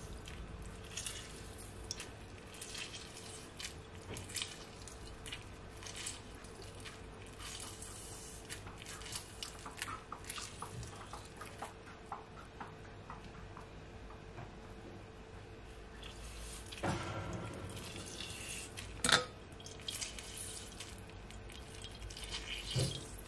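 Lemon juice dripping and splashing through a mesh strainer into a glass bowl as lemon halves are squeezed by hand, with scattered small drips and squelches. There is a sharp knock about three quarters of the way through.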